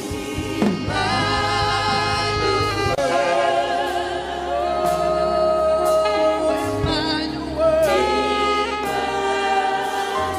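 Gospel worship music: voices, choir-like, sing long held notes with vibrato over an instrumental backing with a steady low bass.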